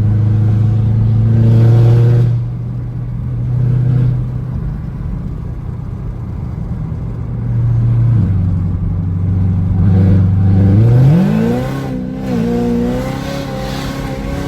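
Chevrolet Camaro ZL1's supercharged V8 engine and exhaust running on the road, swelling louder about two seconds in before easing off. Near the end the engine note climbs sharply as it accelerates, then holds at a higher pitch.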